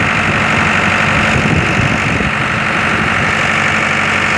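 Engine of a concrete pump running steadily and loudly, with a constant low hum.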